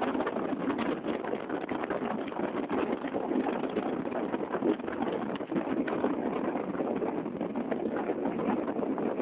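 Storm wind blowing hard: a dense, steady rush of noise with a crackling texture.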